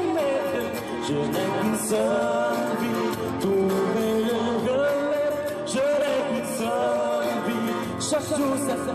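A man singing a song into a microphone over instrumental accompaniment, with long held notes.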